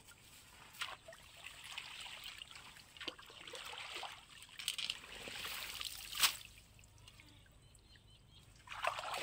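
Shallow canal water sloshing and trickling as a hooked blade is worked through a pile of straw heaped over it, with a few sharp clicks. It swells to its loudest in the middle, dies down, then comes back briefly near the end.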